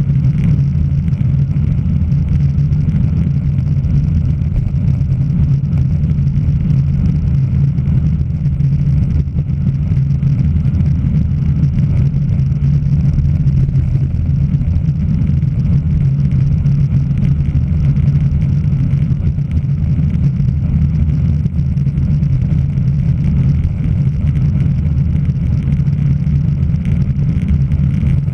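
Steady low rumble of wind buffeting and road vibration on a road bicycle's onboard camera while riding.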